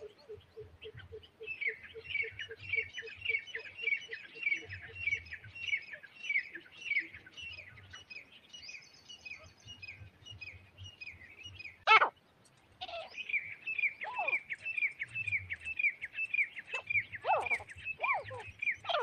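Partridge (teetar) calling: long runs of quick, high, falling chirps, about three a second, with a pause and one sharp loud crack about twelve seconds in before the chirping resumes. A lower, steady pulsing note runs under the first few seconds.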